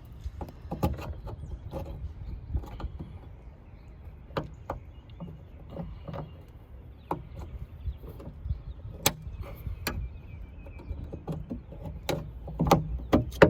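Scattered clicks and knocks of hands and tools working at a car trunk lid's gas-strut mounts, over a low handling rumble, with a quick run of louder knocks near the end.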